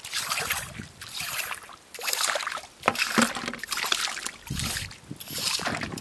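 Shallow seawater sloshing and splashing in irregular bursts as rubber boots wade and long tongs move through a tidal puddle.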